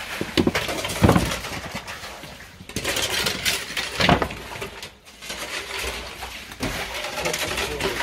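Shovels scraping and scooping through wet sewage sludge, with splashing and slapping of the muck, in irregular strokes. The loudest hits come about a second in and about four seconds in.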